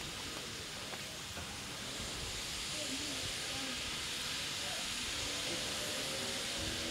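Steady hiss of steam venting from a standing ex-Victorian Railways J class steam locomotive, J515, growing a little louder about two seconds in.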